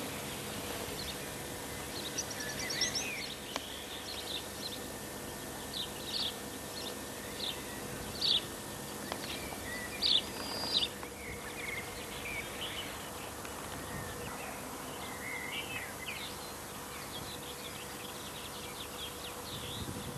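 Small birds chirping and singing in short, scattered calls over a steady background hiss and a faint steady hum.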